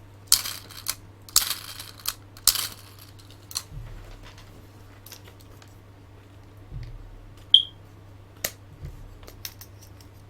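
Plastic action figure handled in the hands: a few brief rustles in the first three seconds, then scattered light clicks and taps of hard plastic parts.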